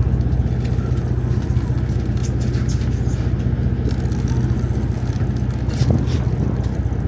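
Sportfishing boat's engine running with a steady low hum, with a few faint knocks on deck.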